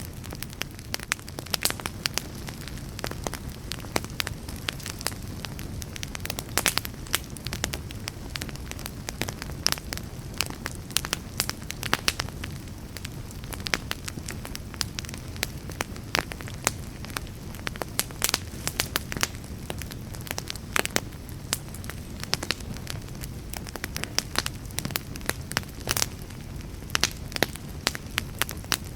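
Wood fire burning: a steady low rumble of flames with frequent sharp, irregular crackles and pops.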